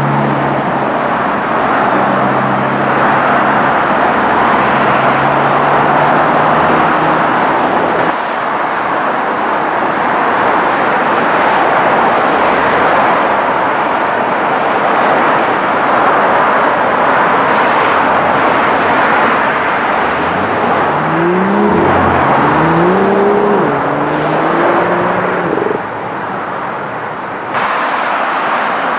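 Sports car engines and road traffic: a Ferrari F430's V8 runs steadily as it pulls away in the first several seconds, then tyre and traffic noise, and later, around two-thirds of the way through, an engine revs up twice in rising sweeps as a car accelerates through a gear change.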